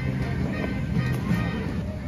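Background music: a low bass line of held notes.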